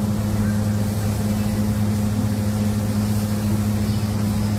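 Air spray gun hissing as paint is sprayed, over a steady low machine hum. The hum and hiss hold an even level throughout.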